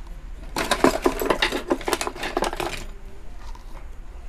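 A rapid clatter of many small hard clicks and rattles, like small metal parts or tools being handled on a workbench, lasting about two seconds from half a second in.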